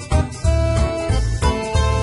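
Background music with a steady beat and a bright melody.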